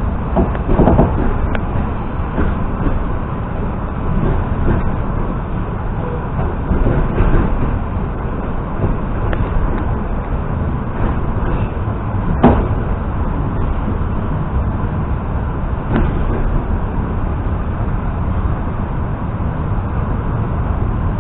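EP2D electric multiple unit heard from inside the carriage while running: a steady rumble of wheels on rails, with a few sharp knocks from the running gear.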